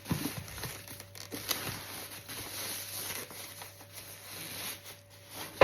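Handling noise from unboxing a new electric kettle: rustling of packaging with scattered light knocks and clicks.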